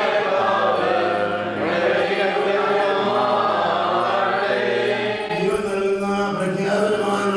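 Several voices singing a slow liturgical chant together, holding long notes that shift slowly in pitch.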